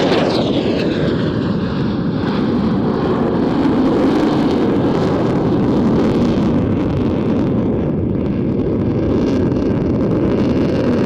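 Eurofighter EF2000 Typhoon's twin EJ200 turbofans: a loud jet flypast that sweeps close by at the start, then a steady jet roar as it moves away.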